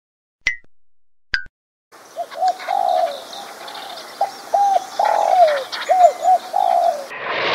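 Pigeons cooing in a run of short coos over a steady background hiss, after two short clicks. Near the end a brief burst of noise sets in.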